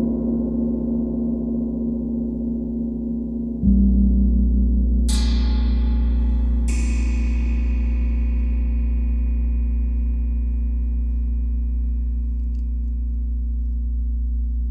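Chau and feng gongs ringing in a long sustained wash of steady tones. About three and a half seconds in a soft mallet stroke swells the deep low hum. Then two brighter strikes about a second and a half apart add a shimmering high ring that slowly fades.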